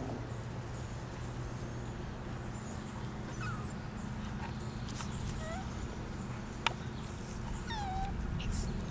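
Puppies giving short high-pitched whimpers and squeaks, about five scattered through, with one sharp click a little after halfway, over a steady low hum.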